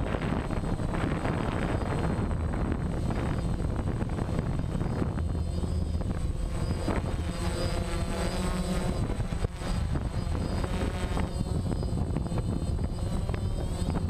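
Remote-control helicopter's rotor and motor running steadily in flight, picked up close by the camera mounted on it. The pitch wavers for a few seconds around the middle.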